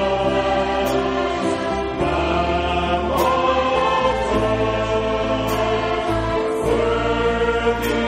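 Choir singing a hymn, with held low bass notes underneath that change every second or two.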